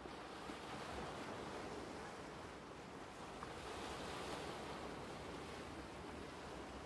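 Sea surf: waves breaking and washing up a beach, a steady noise.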